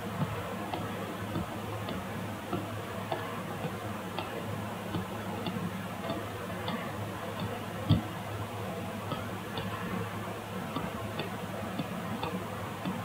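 Faint, fairly regular ticking, about two ticks a second, over a low steady hum, with one louder thump about eight seconds in.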